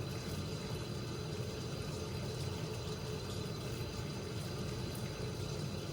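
Tap water running steadily from a faucet into a sink.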